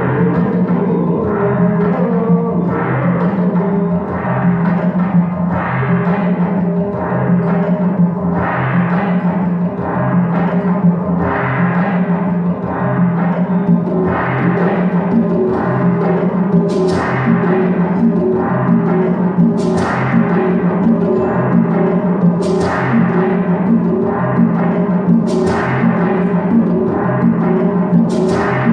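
Live band music: a steadily repeating low pulsing note pattern under ringing pitched percussion tones. From a little past halfway, a bright crash comes about every three seconds, five times.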